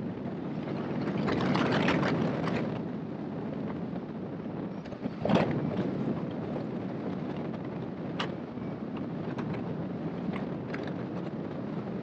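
Airflow rushing over a hang glider's wing-mounted camera in flight: a steady wind rush that swells for a second or two near the start, with a sudden thump about five seconds in and a few faint ticks after it.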